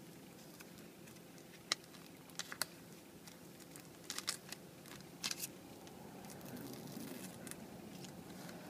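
Small crinkles and a few sharp clicks of a thin plastic thermometer probe cover being peeled back and handled, about half a dozen brief snaps spread over the first six seconds, over a faint steady hum.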